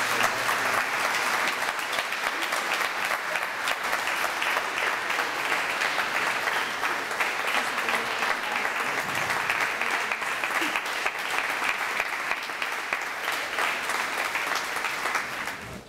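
Audience applauding, a steady sustained round of clapping that dies away shortly before the end.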